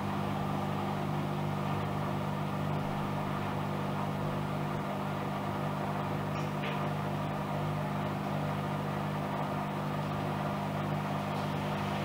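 Miele W1 Classic front-loading washing machine spinning its drum at a steady speed, an even motor hum with no change in pitch.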